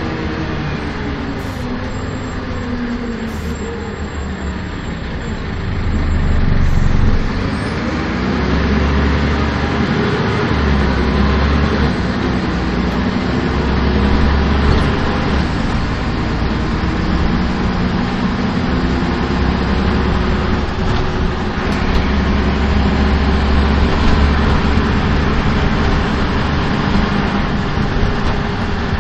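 Karosa B931 city bus with a Renault MIHR six-cylinder diesel engine, heard from inside the passenger cabin as it drives along the road, with a deep rumble and road noise. The engine note falls over the first few seconds, then climbs and grows louder about six seconds in as the bus pulls away harder, and after that it runs at a fairly steady pitch.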